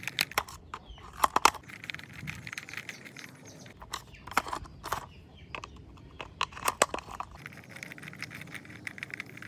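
Small hand screwdriver turning screws into a plastic toy car chassis: irregular clicks and scrapes of metal on plastic as the screws are tightened.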